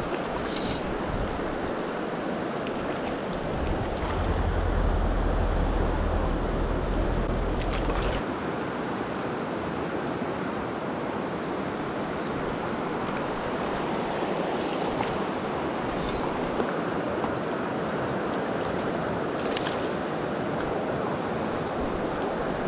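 Shallow, rocky river current running over a riffle: a steady rush of water. From about three seconds in to about eight seconds in, a low rumble on the microphone sits under it.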